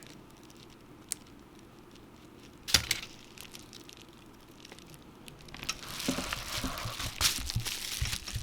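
Hands handling small phone parts and tools during an iPhone 7 Plus screen replacement: a few small clicks, one sharp click about three seconds in, then rustling and crackling with light taps over the last few seconds.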